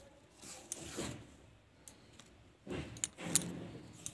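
Hand-sewing cloth with needle and thread: soft rustling of the fabric as the thread is drawn through, twice, with a few light metallic clicks from the bangle on the sewing wrist.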